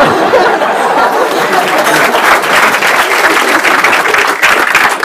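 Audience applauding and laughing: many hands clapping in a dense patter, mixed with crowd laughter.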